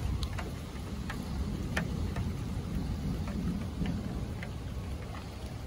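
Steady rain falling, with a low rumble underneath and scattered light ticks.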